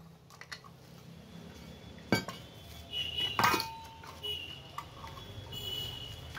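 Cut pieces of steel plate clinking and scraping together as they are handled, with two sharper metallic clanks that ring briefly, about two seconds and about three and a half seconds in.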